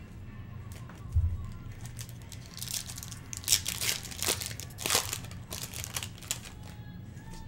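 Foil wrapper of a Topps Chrome football card pack being torn open and crinkled by hand, a run of crackling rustles from about two and a half seconds in until near the end. A dull low thump about a second in.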